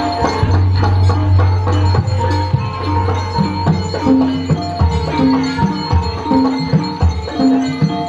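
Javanese gamelan music accompanying an ebeg dance: hand-drum strokes that bend in pitch, over repeated struck metal notes and a low sustained tone, in a steady rhythm.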